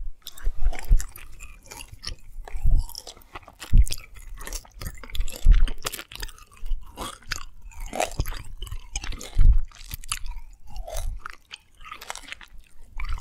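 Close-miked chewing of candy, with irregular sharp mouth clicks and a few deeper thumps.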